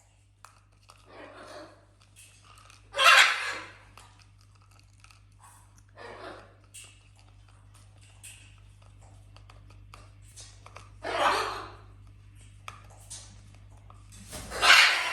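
Pet parrots giving short, harsh squawks: three loud ones and a few fainter ones, spaced a few seconds apart, over a steady low hum.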